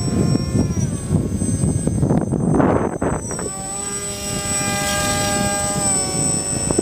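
Homemade delta-wing RC plane's motor and propeller whining in flight. The pitch drops about a second in and rises again around three and a half seconds in. Bursts of rushing noise run under it.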